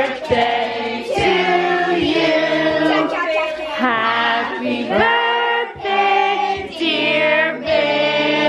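A group of children and adults singing a song together, many voices with long held notes.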